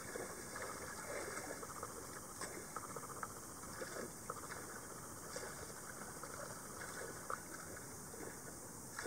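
Seawater splashing and churning at the surface of a floating fish pen as bonito and yellowfin tuna strike small horse mackerel thrown in as feed: many small, irregular splashes over a steady wash of water.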